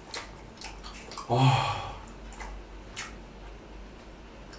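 A person chewing a bite of flour-coated pan-fried chicken thigh: scattered crisp chewing clicks, with one short, louder burst a little over a second in.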